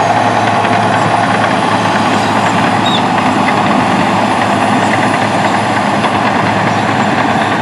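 Heavy construction equipment running with a steady, loud engine rumble, with no distinct knocks or changes.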